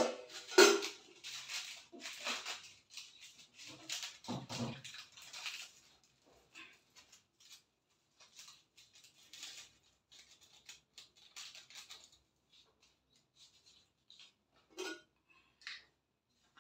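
Small clicks, taps and rustles of a spoon, a ceramic mug and a plastic jar with a screw lid being handled while instant coffee is made, busiest in the first few seconds, with a dull knock about four and a half seconds in.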